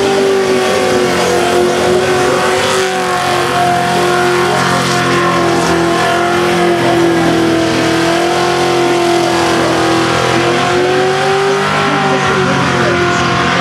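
FPV GT's V8 engine held at high revs in a burnout, its pitch wavering slightly as the throttle is worked, over the hiss of spinning tyres.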